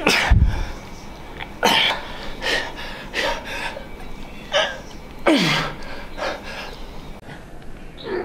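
A man's sharp, forceful exhales and short grunts, about six of them at irregular intervals, as he strains through reps of cable biceps curls.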